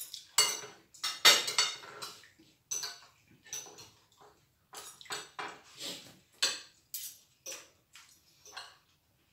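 Cutlery clinking and scraping on plates and dishes as people eat: an irregular run of light knocks and clinks, busiest in the first couple of seconds and sparser toward the end.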